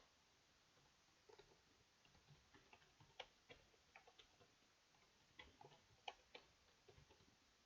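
Faint, irregular clicking of computer keyboard keys being typed, starting about a second in.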